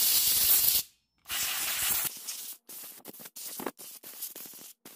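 Compressed-air blow gun blasting sawdust and grime out of a chainsaw's clutch housing: two long, loud blasts of hissing air, then a string of shorter, quieter puffs.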